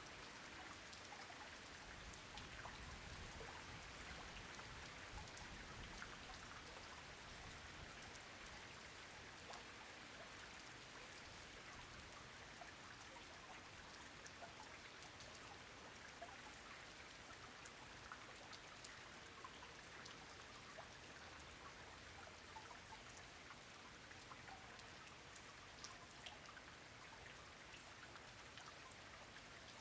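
Rain falling steadily and softly: an even hiss dotted with many small, separate drop ticks.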